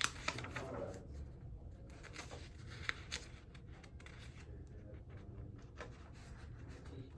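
Faint handling noises, scattered soft clicks and rustles, over a steady low hum.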